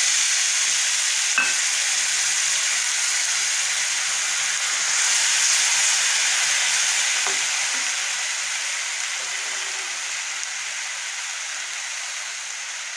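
Wet onion-garlic paste sizzling in hot mustard oil in a steel pan as it is stirred with a slotted spatula. The sizzle is loud at first and slowly dies down. There is a single metal tap of the spatula on the pan about a second and a half in.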